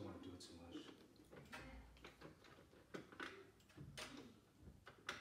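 Faint scattered clicks and light knocks from a wall-mounted fold-down table being lifted level onto its folding metal brackets.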